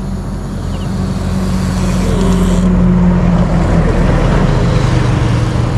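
A motor vehicle's engine running steadily, getting louder over the first three seconds and then holding, under a broad rushing noise.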